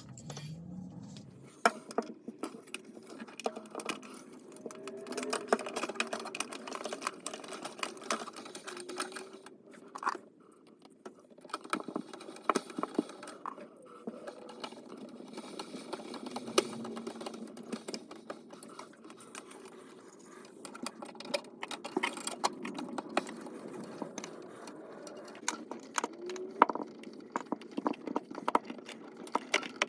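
Hand work on refrigerator parts while swapping an old part for a new one: many small, irregular clicks, taps and rattles of parts and tools being handled.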